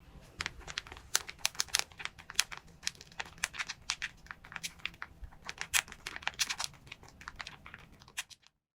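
A handmade paper squishy being squeezed over and over: irregular crinkling and crackling of paper, stopping shortly before the end.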